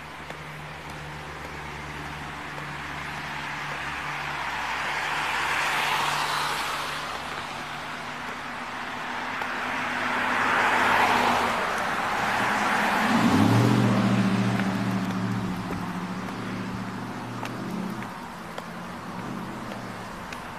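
Road traffic passing close by: vehicles go past one after another, each a swell of tyre and engine noise that rises and fades. The last and loudest, a little past halfway, has a deeper engine hum.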